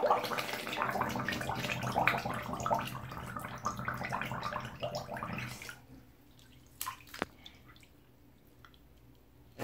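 Breath bubbling and gurgling up through bathwater as a person exhales with her head submerged, for about six seconds. It then stops, and a few single drips fall as she comes up out of the water.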